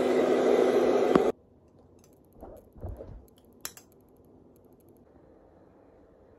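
Handheld hair dryer blowing steadily, cut off sharply about a second in. Then faint rustles and a single sharp click.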